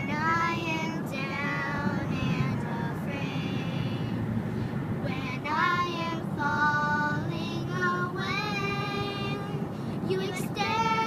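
A high voice singing in short phrases of held and gliding notes, over a steady low rumble.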